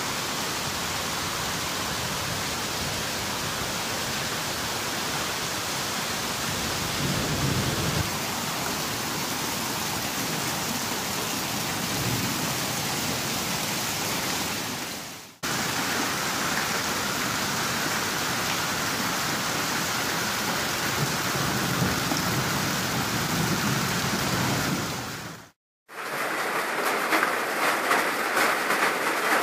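Heavy rain mixed with hail pouring down in a steady, dense hiss. It cuts out briefly twice; near the end the drops patter and crackle close by.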